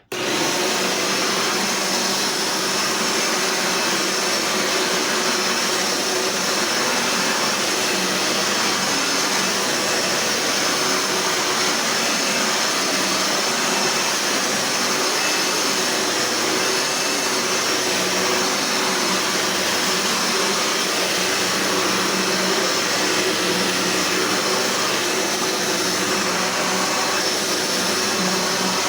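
Eureka Powerline 11-amp vacuum cleaner switched on, its motor starting at once and running steadily at full speed.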